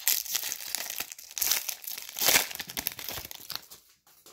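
Pokémon Hidden Fates booster pack's foil wrapper crinkling and tearing as it is pulled open by hand, a dense crackle with a loud burst about two seconds in, dying down near the end.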